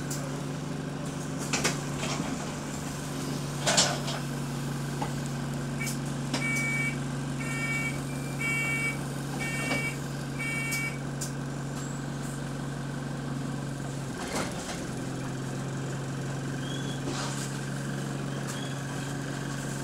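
Diesel engine of a single-deck Go-Ahead London bus running steadily at idle, heard from inside the passenger saloon; the bus is said to have a burst exhaust. About a third of the way in, five high beeps about a second apart sound from the bus's door warning, and a couple of sharp knocks come earlier.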